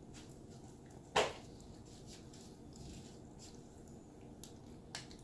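Yorkshire terrier chewing raw bone-in chicken neck: small crunches and clicks throughout, with one loud crunch about a second in and another sharp one near the end.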